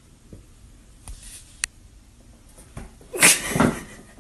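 Domestic cat giving a short, noisy call in two pulses about three seconds in, after a few faint clicks.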